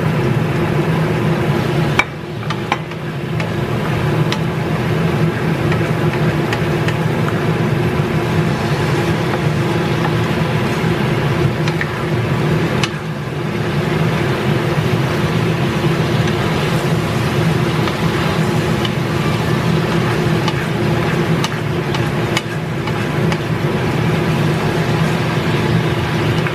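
Fish cooking in soy-sauce braising liquid in a wok, a steady sizzle over a constant low hum. There is a knock on the pan about two seconds in and a few light spatula taps later.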